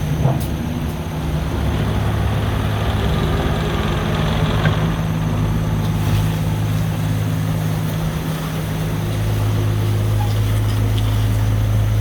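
JCB 8026 mini excavator's 25 hp diesel engine running steadily; its note changes about eight and a half seconds in and runs slightly louder after.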